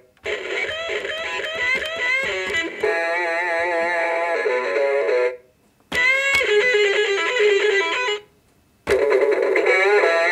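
Toy electronic keyboard of a Simba I-Mixer MP3 DJ console playing short melodic phrases in a guitar-like voice as the keys are pressed. The notes have a wobbling pitch, and the sound breaks off briefly about halfway and again near the end.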